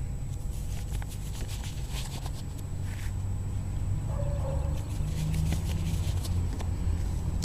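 Light rustling and clicking from work gloves and hands being handled close to the microphone, over a steady low rumble.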